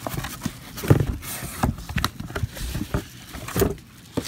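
Handling noise from a package being opened: irregular bumps, knocks and rustles close to the microphone, the loudest knocks about a second in and again near the end.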